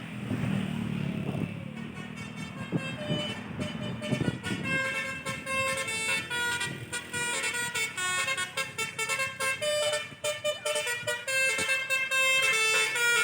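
A bus's 'telolet basuri' musical horn playing a quick melody of many changing notes, over the low rumble of the bus engine, which is loudest in the first few seconds.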